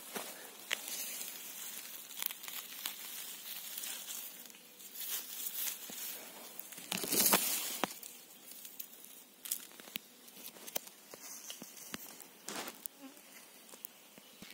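Footsteps and rustling through forest undergrowth and leaf litter, with scattered small crackles. A louder rustle and crackle comes about seven seconds in as a mushroom is handled close to the microphone. Insects buzz faintly.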